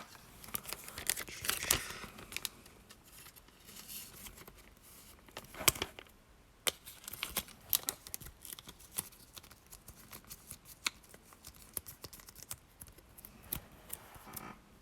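Pokémon trading cards and their packaging being handled: scattered small clicks and short rustles, with a brief run of rustling near the start.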